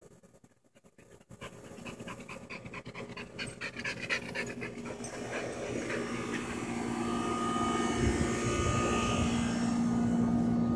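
A dog panting rapidly and rhythmically close by. In the second half a steady mechanical hum with a higher whine grows louder and covers it.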